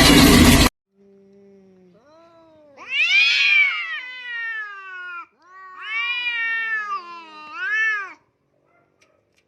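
A loud rushing noise cuts off abruptly within the first second. Then a cat yowls three times in long, drawn-out calls, each rising and then falling in pitch; the first call is the longest and loudest.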